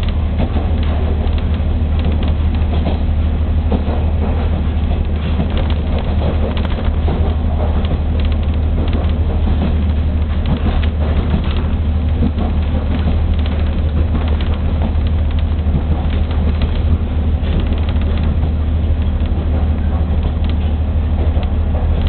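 Diesel train running along the JR Gonō Line, heard from inside the passenger car: a steady deep rumble of engine and wheels with a faint clatter throughout.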